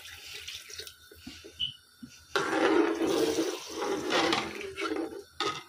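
Cups of water poured into a pot of simmering potato-and-pea broth, splashing into the liquid, as measured water is added for pulao. One pour trails off in the first second, then a louder pour runs from about two and a half seconds in for over two seconds.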